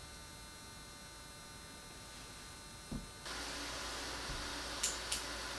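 Quiet room tone: a steady hiss with a faint electrical hum on the recording, stepping up louder at a cut about three seconds in. A soft thump comes just before the cut, and two faint clicks come near the end.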